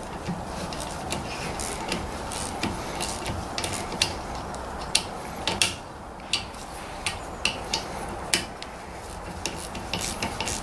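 Socket ratchet clicking in irregular runs, with sharp metal clinks, as a 13mm brake caliper bolt is undone.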